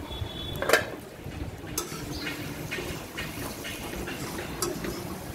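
A metal lid clanks against a wok about a second in, then a spatula stirs and scrapes chicken and taro pieces around the wok in a run of short knocks and scrapes.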